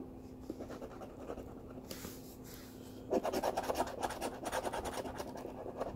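Scratching the coating off a scratch-off lottery ticket in rapid short strokes. It is faint at first and becomes louder and denser from about three seconds in.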